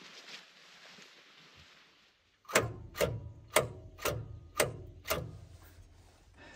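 Valmet 500 tractor's diesel engine cranked over slowly by the starter motor, with a heavy knock at each compression stroke about twice a second for some three seconds; it does not catch.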